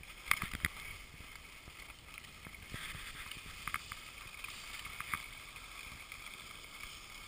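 Skis sliding over packed snow, a steady hiss with a few short scrapes, with some wind on the microphone.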